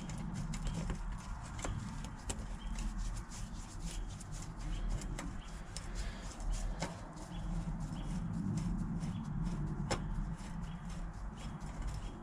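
Light clicks and clinks of bolts and metal parts being handled during reassembly of an excavator joystick valve mount, over a low steady hum.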